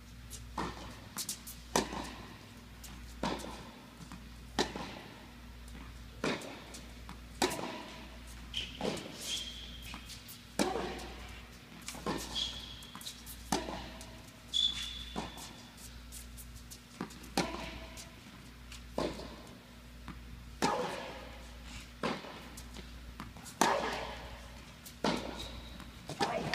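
Tennis rally on an indoor court: the ball struck back and forth by rackets, about one hit every one and a half seconds, each echoing in the hall. Between the hits come a few short high squeaks of shoes on the court, over a steady low hum.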